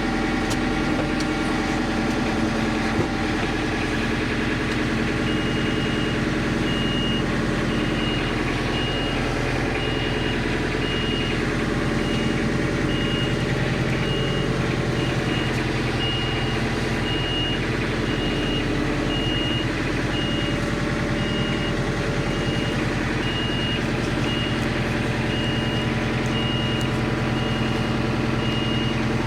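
Engine running steadily at a constant speed, with a reversing alarm beeping about one and a half times a second from about five seconds in: a machine backing up.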